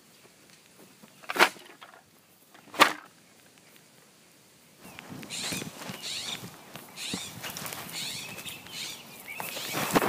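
Two short, sharp, loud sounds about a second and a half apart. From about five seconds in, a busier outdoor bed follows: high bird chirps and soft crunching, like steps on dry grass.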